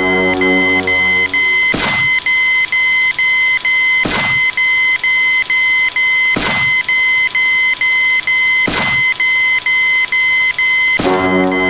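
A dense layer of electronic sound effects: steady high beeping tones pulsing rapidly, a low buzzy tone in the first two seconds, and a sweeping whoosh about every two and a half seconds.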